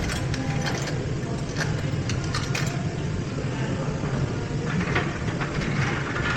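Scattered light metallic clicks and clinks of hand tools and sockets being handled, over a steady low hum.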